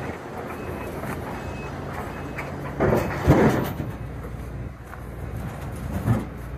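Engine running steadily at idle, with a few heavy thumps about three seconds in and another near six seconds.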